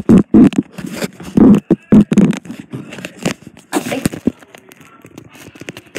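Loud thumps and rubbing right on the microphone: a camera in a small waterproof case, hung on a necklace, knocking and scraping against clothing as the wearer moves. The knocks come thick in the first two seconds, then give way to lighter rustling.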